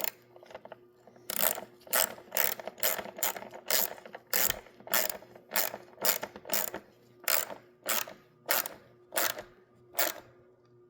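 Ratchet wrench with a 10 mm socket clicking in short, regular strokes, about two a second, tightening the nuts that hold the air filter housing to the carburetor.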